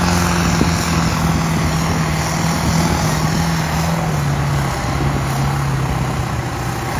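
Modified John Deere pulling tractor's engine running flat out under load while dragging a weight-transfer sled. The engine note holds steady, then drops lower in steps about four and five seconds in as the sled's load builds and the engine is pulled down.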